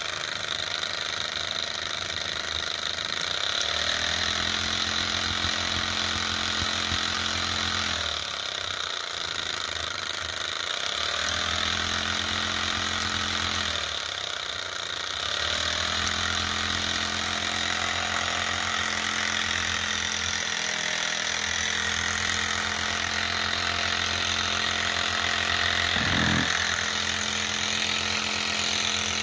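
Enjomor gas-fired Ross-yoke Stirling engine model with its lighter-gas burner hissing steadily under the hot cylinder. The engine's mechanical whirr rises in pitch as it starts about four seconds in, dies out twice, picks up again each time, then keeps running. There is a single knock near the end.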